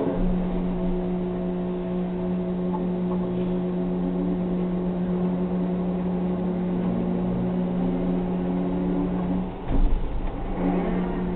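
Comansa LC 21 280 tower crane's electric slewing drive running with a steady, even-pitched hum as the crane turns. Near the end the hum briefly drops out into a low rumble, then comes back.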